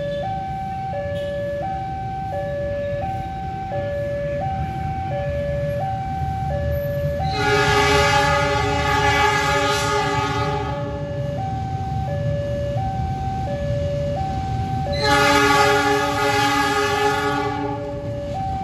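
KAI CC 206 diesel locomotive horn sounding two long blasts, the first about seven seconds in and the second about fifteen seconds in, over the low rumble of the approaching train. Underneath, a two-note warning signal keeps alternating between its notes about every half second.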